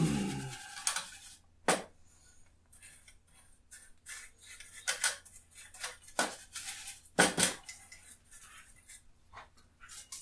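A painting tool scraping and tapping on a large clear palette as oil paint is mixed, in short irregular strokes with gaps between them. A burp from just before trails off at the very start.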